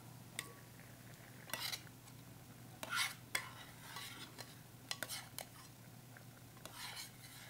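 A wooden spoon stirring orzo pasta in a stainless steel saucepan, with scattered short scrapes and light knocks against the pot as the glass lid is lifted off.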